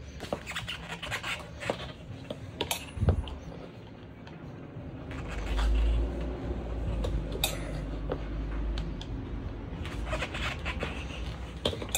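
Flathead screwdriver prying a solid rubber tire's bead into a small scooter wheel rim, to seat the last section still sunken into the rim: scattered scrapes and clicks of the steel blade against rim and rubber. A low rumble comes in about five seconds in and fades after about nine seconds.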